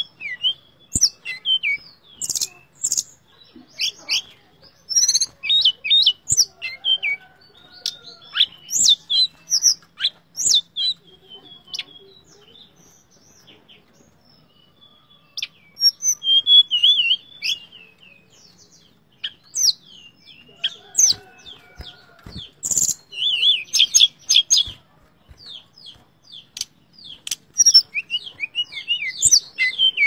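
A tledekan, a blue flycatcher, singing in quick runs of high chirps and twitters, with a lull of a few seconds in the middle before the song picks up again.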